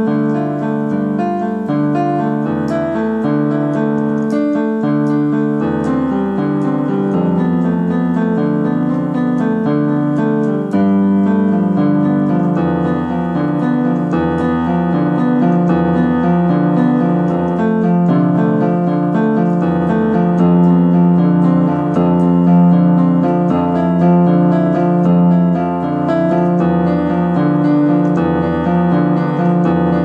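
Piano music: slow sustained chords over a bass line, changing every second or two.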